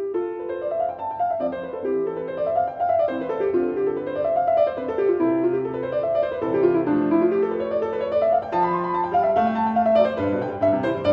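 Piano music: quick runs of notes rippling up and down in repeated waves over slower low notes.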